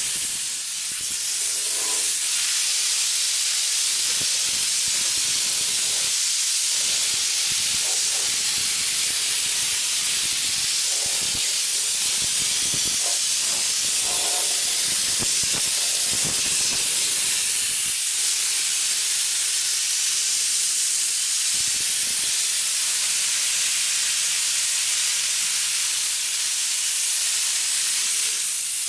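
Compressed-air gravity-feed spray gun hissing steadily as it sprays paint.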